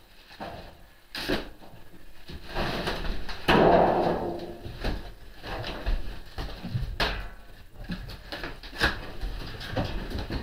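Scattered knocks, clunks and clicks from unpacking a crated metal lathe by hand, with a louder, longer noise from about two and a half to four and a half seconds in.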